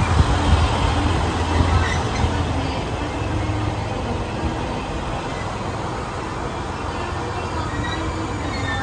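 Chizu Express HOT7000-series diesel railcar train rolling slowly to a stop at a platform. Its low rumble eases over the first two seconds into a steady diesel idle.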